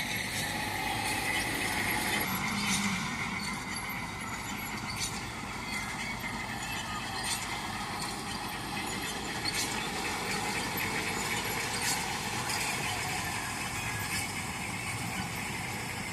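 A harvesting machine running steadily, its engine and moving parts giving an even noise with a faint high whine and scattered clicks and rattles.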